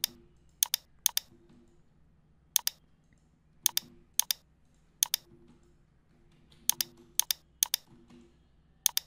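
Computer mouse and keyboard clicks: about a dozen short, sharp clicks at irregular spacing, many in quick pairs, over a faint steady hum.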